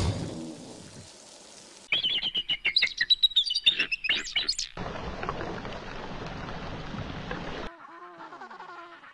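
A hawk's rapid, high-pitched calls, a quick run of sharp chirps and swooping cries, follow a brief low rumble near the start. A steady rushing noise comes next, and near the end a string of penguin calls rises and falls.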